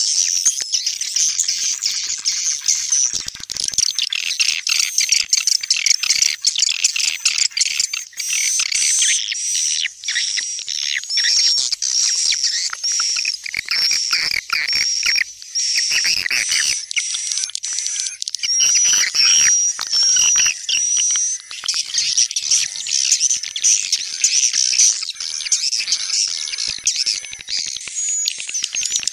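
Swiftlet calls played as a lure to draw swiftlets into a nesting house: dense, unbroken high chirping and twittering, with short repeated whistled notes through the middle.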